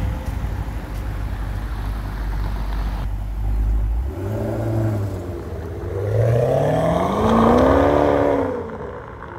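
Maserati GranTurismo's V8 rumbling at low revs, then a short blip of the throttle about four seconds in, then pulling away under acceleration, its note climbing to a peak and dropping off near the end.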